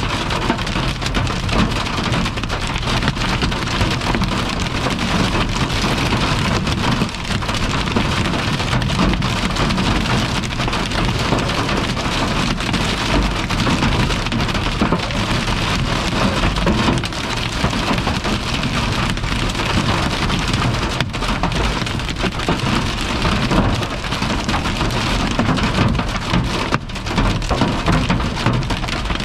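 Hail and heavy rain drumming hard on a car's roof and windshield, heard from inside the car: a dense, steady clatter, very loud.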